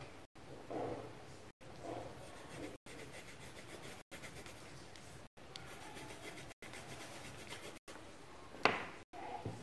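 Coloured pencil shading on paper: soft, scratchy rubbing strokes, with a sharp tap near the end. The sound breaks off in short gaps about every second and a quarter.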